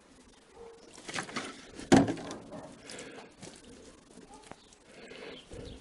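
Water splashing from a plastic bottle onto a glass pane, then a single sharp knock about two seconds in, followed by faint rubbing of hands over the wet glass.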